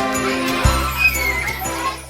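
Background music: a song with a deep bass note and bright jingling, bell-like percussion.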